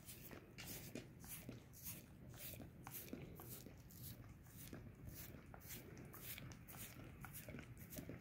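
A dog licking a person's bare foot: faint, quick wet licks and smacks, a few a second, in an irregular rhythm.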